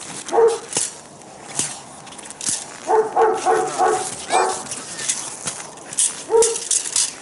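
Dog barking in short single barks: one about half a second in, a quick run of four or five about three seconds in, and another near six and a half seconds.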